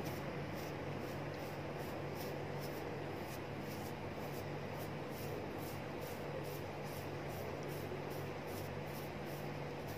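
Steady low hum and hiss of background noise, with a faint, even ticking about four times a second.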